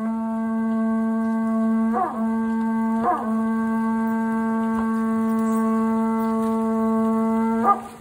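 Horagai (conch-shell trumpet) blown in one long steady note, breaking briefly twice about two and three seconds in, then cutting off just before the end.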